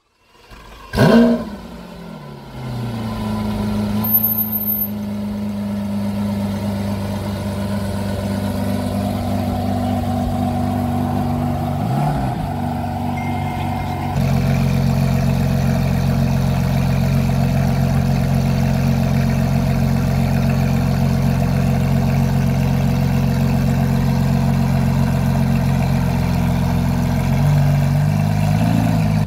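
Lamborghini Aventador SVJ Roadster's 6.5-litre V12 starting with a short loud flare about a second in, then settling to a steady idle. The idle is louder from about halfway, and the pitch rises briefly near the end.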